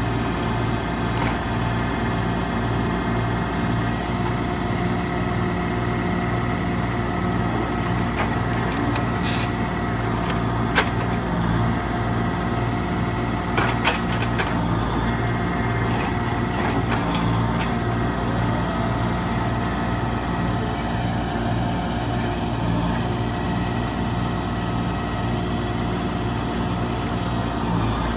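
Heavy engine of log-loading machinery running steadily, with a few sharp knocks and clatters about ten and fourteen seconds in as logs are handled.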